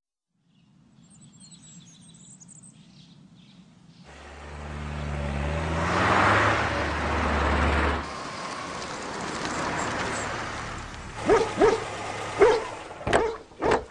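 Faint bird chirps, then a car drives up, its engine swelling loud and cutting off sharply a little past halfway. Near the end a dog barks several times.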